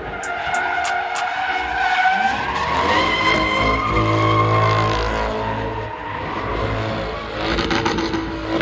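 Chevrolet C8 Corvette's V8 held at high revs while spinning donuts, its rear tyres squealing and skidding on asphalt. The revs climb about a third of the way in, fall back, and climb again near the end.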